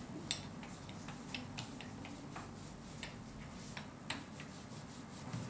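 Handled wooden dough roller with a metal frame rolling a ball of dough flat on a floured wooden board: faint rubbing with a scattering of irregular light clicks.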